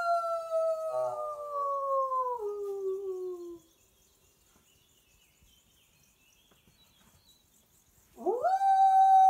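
A person howling in imitation of a wolf, to call wild wolves into answering. A long held howl slides down in pitch and fades out about three and a half seconds in; after a few seconds of near silence, a new howl swoops sharply up near the end and holds steady.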